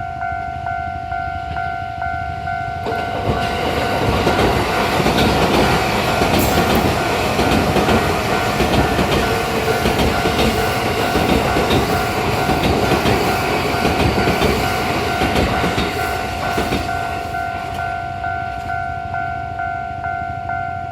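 Electric commuter train passing over a level crossing, its wheels clattering over the rail joints. The noise builds about three seconds in and fades near the end. A railway crossing alarm keeps ringing steadily.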